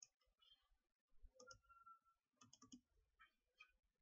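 Faint computer mouse clicks, a few quick clicks in small groups, over near silence.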